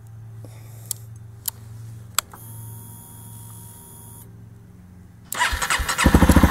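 Honda CRF250L single-cylinder engine, freshly bored out to 305 cc, on its first start-up: after a few faint clicks, the electric starter cranks it about five seconds in and it catches within a second, running in quick, even pulses.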